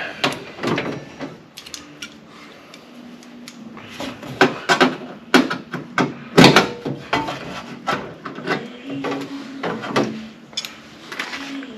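Replacement sheet-metal cab corner being fitted and held with clecos pushed in by cleco pliers: irregular metal clicks and knocks, the loudest about six and a half seconds in.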